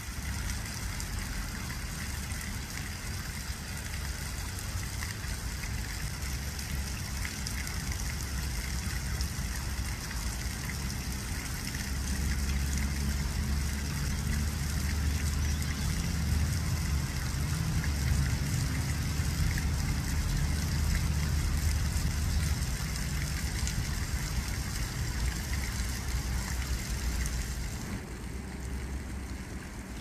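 Water running and splashing in a garden fountain, a steady rushing with a low rumble underneath, louder from about twelve seconds in and easing off near the end.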